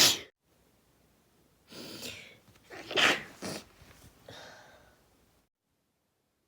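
A person sneezing: the end of one sneeze right at the start, then a sharp in-breath about two seconds in and a louder sneeze about three seconds in, followed by softer breathing.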